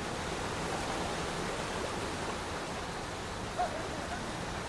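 Steady rush of waterfall water, with one brief faint chirp about three and a half seconds in.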